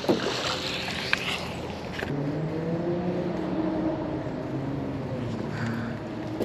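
A few knocks and clatters, then from about two seconds in an engine runs with a steady pitch.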